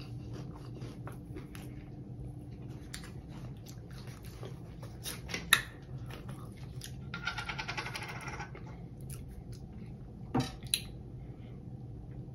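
Small clicks and taps from handling things at the table. About seven seconds in there is a rasping crackle lasting about a second and a half, as the plastic cap of a drink bottle is twisted open.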